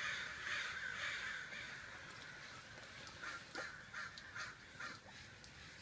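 A bird calling: a run of about five short, harsh calls, evenly spaced, in the second half.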